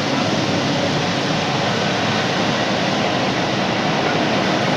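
Steady road noise from inside a moving vehicle on wet streets: an even hiss of tyres and engine with no breaks.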